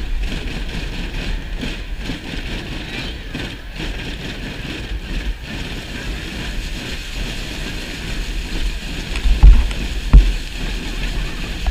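Steady din from a large crowd of children, with wind buffeting the microphone and two low thumps near the end.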